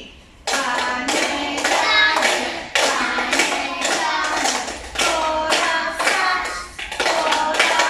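A woman and a group of young children singing a song together while tapping teaspoons on small cups in a steady beat, starting about half a second in.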